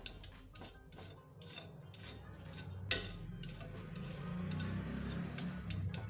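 Spatula pressing and smoothing soft semolina fudge in a steel plate, with light scrapes and clicks against the metal and one sharper clack about three seconds in.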